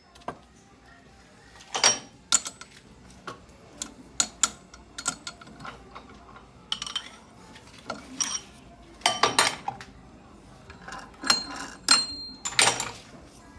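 Metal objects clinking and knocking at irregular intervals, a few strikes ringing briefly with a high metallic tone.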